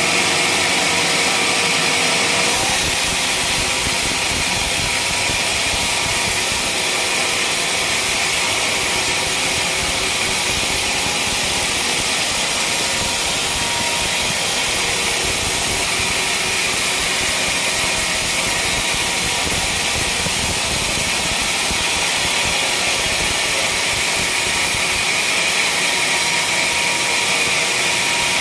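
Sawmill machine running with a loud, steady mechanical noise that does not let up.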